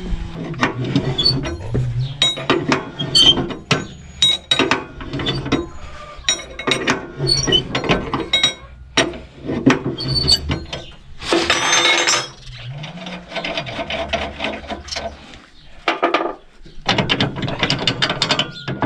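Spanners working the bolts on a tractor rotary tiller's hitch frame: irregular metallic clicking and clinking, with a longer, louder rasp about eleven seconds in.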